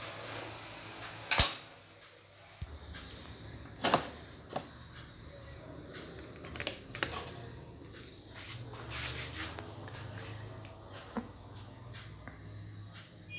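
Irregular clicks and knocks from a toaster being handled, the loudest about a second and a half in, over a low steady hum.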